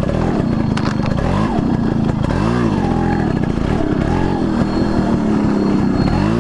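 Yamaha RX100's two-stroke single-cylinder engine revving up and down several times as the motorcycle is ridden slowly over rough, rocky ground.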